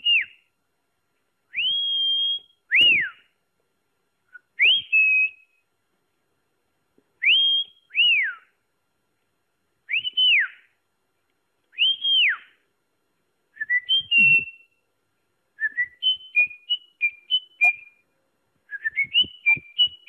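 Whistling: about eight loud whistled calls, each rising in pitch, sometimes holding, then falling, spaced a second or two apart. In the last third they change to quick runs of short stepped notes.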